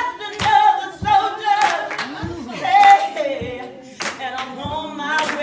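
A choir singing with handclaps.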